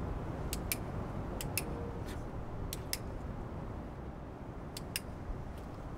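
A lighter being flicked again and again without catching: sharp clicks, mostly in close pairs, every second or so, over a steady hum of distant traffic.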